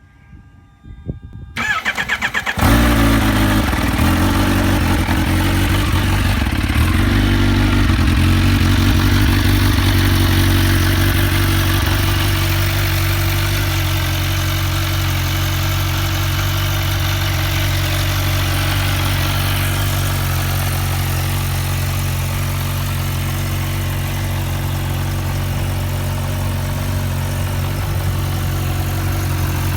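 2016 Kawasaki Ninja H2's supercharged inline-four on a cold start: after a faint whine, the starter cranks briefly about two seconds in and the engine catches, then idles steadily, slightly faster for the first several seconds before settling.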